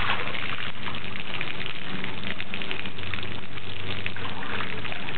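Water spraying from a garden hose onto the bare concrete floor of an empty swimming pool, a steady hiss and patter of droplets.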